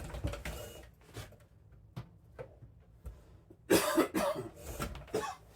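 A man coughing: a fit of several harsh coughs close together, about two-thirds of the way through, after a quiet stretch with a couple of faint clicks.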